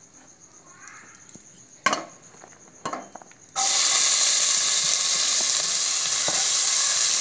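Chopped onions tipped into hot oil in a pressure cooker: a couple of sharp knocks, then about three and a half seconds in a sudden loud, steady sizzle as the onions start frying.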